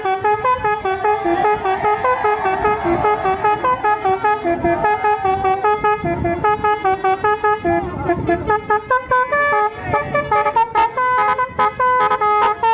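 Basuri telolet bus horn, a multi-trumpet musical air horn, playing a fast melody of stepped notes. From about three-quarters through, the notes come as short, separate blasts.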